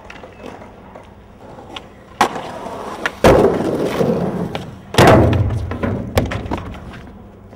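Skateboard on concrete: a sharp pop about two seconds in, then a loud impact and a long rumbling scrape of wheels and trucks. A second loud impact about five seconds in is followed by the wheels rolling away and fading out.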